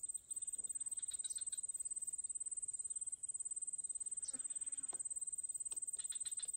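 An insect calling with a steady, high-pitched buzz that pulses about ten times a second. A few faint short clicks come near the end.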